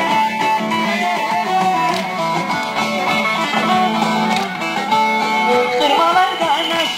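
Amplified Turkish folk dance music played through loudspeakers: a plucked string instrument carries the melody over a steady low drone, with no singing.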